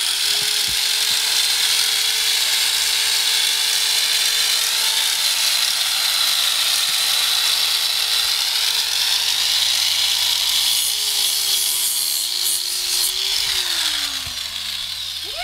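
Angle grinder running while it grinds down a horse's hoof: a steady motor whine under harsh grinding hiss. The whine falls away as the grinder winds down near the end.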